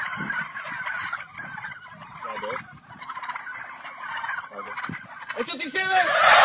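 Birds calling over and over in quick chattering runs, with a sudden loud, noisy burst near the end.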